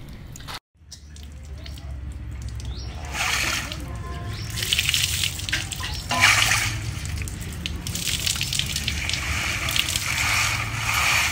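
Water and ice cubes sloshing and rattling in an ice bath as a body moves through it, with a short dropout about half a second in.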